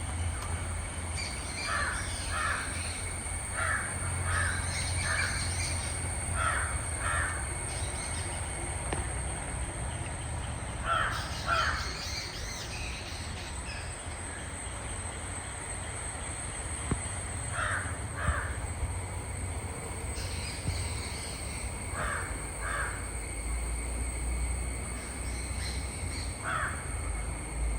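Crows cawing outdoors: short harsh caws, mostly in twos or threes, repeating every few seconds, over a steady low rumble and a constant thin high-pitched whine.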